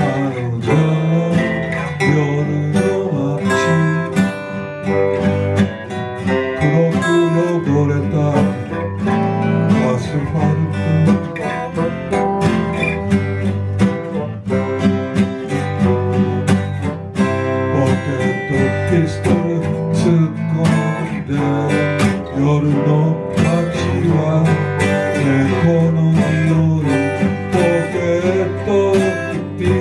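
Band music with a strummed acoustic guitar playing a steady instrumental passage.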